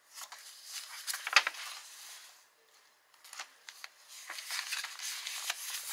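Paper pages of a handmade junk journal rustling and being handled, with small ticks and taps; the sharpest tick comes about a second and a half in.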